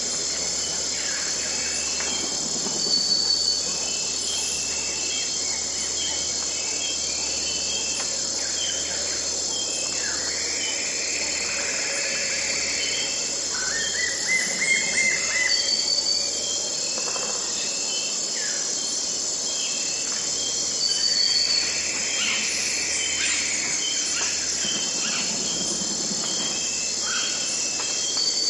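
Amazon rainforest ambience at sunrise: a steady, high-pitched drone of insects with bird calls over it every few seconds, including a rising series of notes about halfway through.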